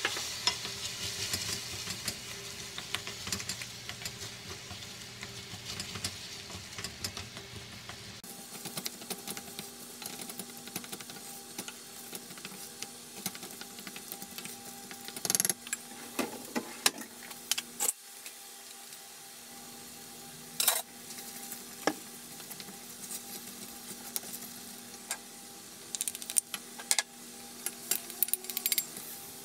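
A wooden spoon stirs a thick soybean-paste and vegetable mixture in a stainless steel pot, with sizzling and small clicks for the first several seconds. Then the sizzling stops, leaving a faint steady hum with scattered scrapes and knocks of the spoon against the pot, thicker near the end as chopped green onions and chillies are tipped in.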